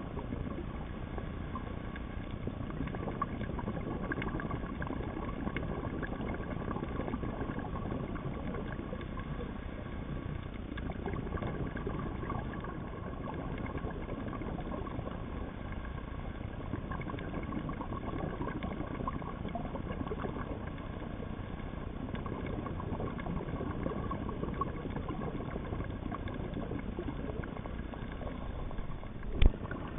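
Steady underwater noise through an underwater camera housing on a reef: a dense hiss with fine crackling and a faint steady hum. A single sharp knock comes about half a second before the end.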